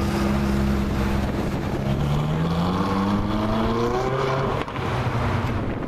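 Ferrari 458 Speciale A's naturally aspirated V8 running, then revving up, its pitch rising steadily for about two seconds before a brief drop in loudness near the end.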